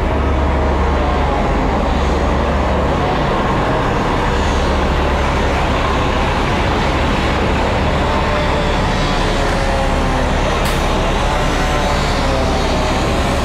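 Fire engine's diesel engine running steadily at the scene, a loud, even deep rumble with no break.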